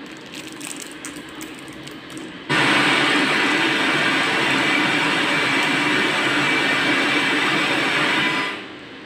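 FM radio static from a Bluetooth/MP3 decoder board's tuner, a loud steady hiss that switches on suddenly about two and a half seconds in and stops near the end. The tuner is picking up no station because no antenna is fitted. Before it, a few soft clicks of buttons being pressed.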